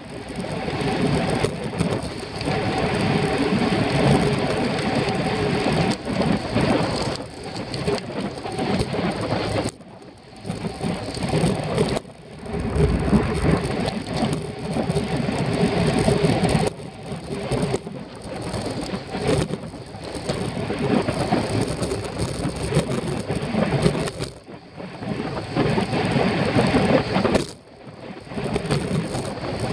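Wind rushing over a bicycle-mounted camera's microphone at race speed. It is a heavy, rumbling rush that cuts out briefly several times.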